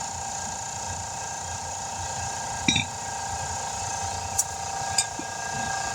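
A steady mechanical hum with a few short metallic clinks and taps, about three in all, from tire tools and the wheel being handled while the tire's bead is readied for seating.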